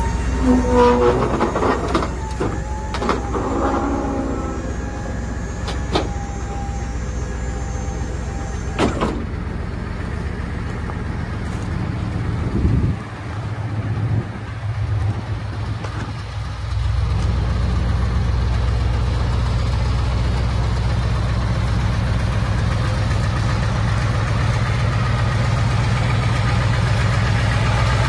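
Navistar diesel engine of a 1992 International 4600 box truck idling steadily, louder and closer from about two-thirds of the way through. In the first few seconds, squeaky metallic tones and a few sharp clicks sound over the idle.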